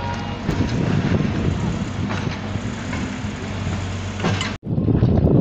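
A mobile crane's engine running steadily under outdoor noise. About four and a half seconds in the sound drops out for an instant, then comes back as a louder, rougher rumble.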